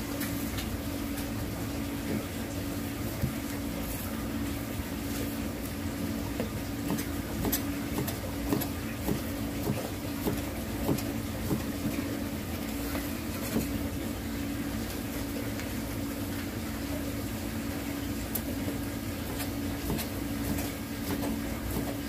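Kitchen knife tapping on a plastic cutting board in short irregular clicks as a raw white fish fillet is sliced thin for sashimi, over a steady machine hum.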